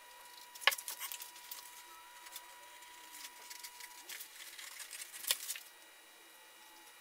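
Veg-tan leather and tools being handled on a workbench: a sharp tap less than a second in, then scattered taps, followed by rustling and scraping of the stiff leather with another sharp click a little after five seconds.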